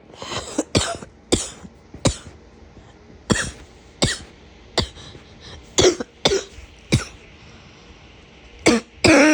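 A person's harsh, barking cough: about a dozen short single coughs, roughly a second apart, bunching into a quick run near the end.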